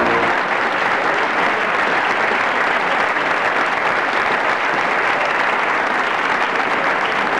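A crowd applauding, a dense steady clapping that holds at one level, with the last notes of music ending right at the start.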